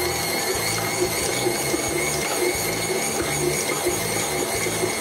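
Electric stand mixer running at a higher speed, its flat beater churning thick cookie dough in a glass bowl. The motor gives a steady whine over a low, uneven churning rumble.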